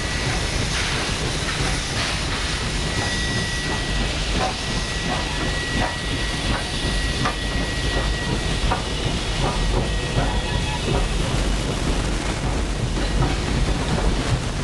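Heritage steam train passing at slow speed: a steady low rumble as the locomotives go by and the carriages roll past, with a thin high steady squeal for the first half and wheels clicking over rail joints in the middle.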